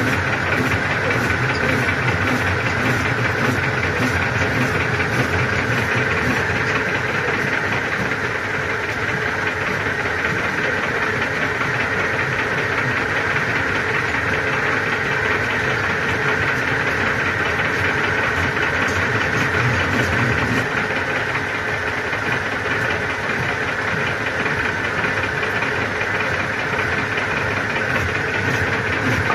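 Metal lathe running steadily, spinning a shock absorber body in its chuck while it is being opened.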